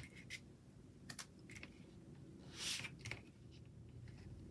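Faint small clicks and a brief paper rustle about two and a half seconds in, from a paper letter sticker being handled with a pointed applicator tool and pressed onto a planner page.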